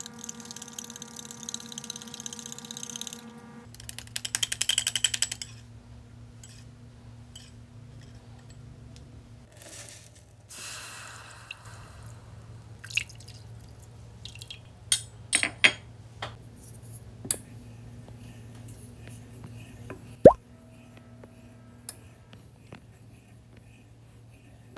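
A metal whisk beating egg yolks and sugar in a ceramic bowl, with a fast, loud rattle about four seconds in. Then milk and cream are poured into a saucepan, and a run of drips and sharp little taps follows as the pouring ends and a wooden spatula is put in.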